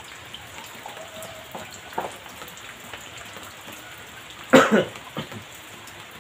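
Steady hiss of light rain, with one short, loud noise about four and a half seconds in.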